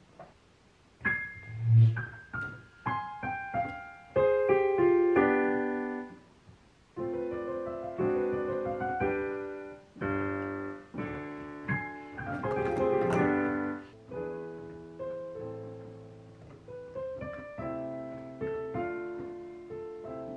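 Digital piano being played in practice: struck chords and short phrases, each dying away, starting about a second in, with short pauses between phrases.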